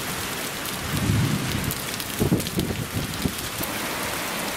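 Heavy rain pouring down in a steady hiss, with low rumbles about a second in and again from about two to three seconds in.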